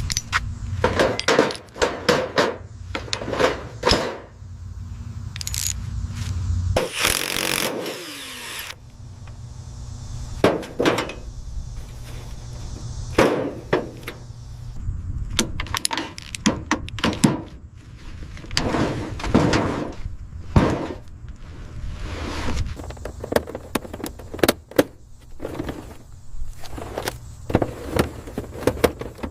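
A string of irregular knocks, clanks and thuds from hand work on metal, with a low steady rumble under them for the first seven seconds and a short harsh rasping burst about seven seconds in.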